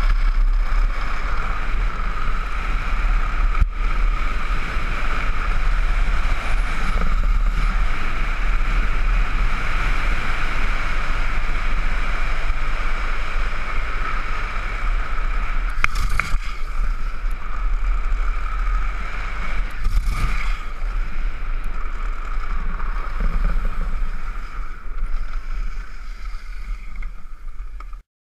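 Wind buffeting the onboard microphone and wheels rolling on asphalt as a gravity cart descends at speed: a steady rush with a heavy low rumble. There are two short sharp noises past the middle, and the sound fades, then cuts off just before the end.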